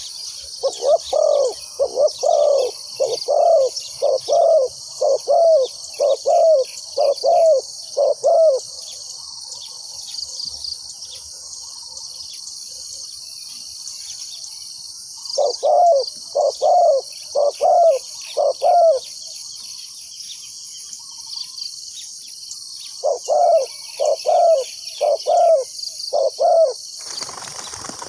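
Spotted doves cooing: three bouts of repeated short, even coos, about one and a half a second, with pauses between bouts. Insects drone steadily and high underneath.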